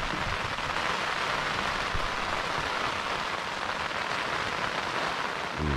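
Rain falling on the tent's fly, heard from inside the tent: a steady, even patter.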